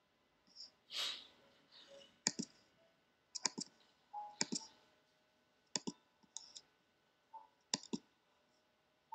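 Sharp computer pointer clicks, about half a dozen mostly in quick press-and-release pairs, as measurement points are set on an ultrasound image. A short hiss comes about a second in.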